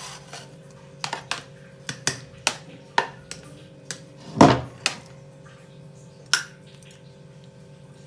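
Metal spoon clinking and scraping against the cooking pot and a ceramic plate as khichdi is served out: a string of sharp, irregular clinks, the loudest about four and a half seconds in. A steady low hum runs underneath.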